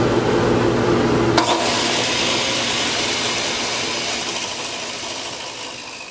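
A power tool motor on the lathe duplicator rig runs with a steady hum. About a second and a half in there is a click, the hum drops out, and a whooshing noise fades slowly as the tool spins down.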